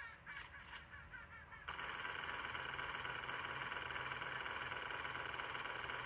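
A bird's quick squawking calls, played through a laptop speaker, in the first second and a half. Then a steady hiss with a faint high hum takes over.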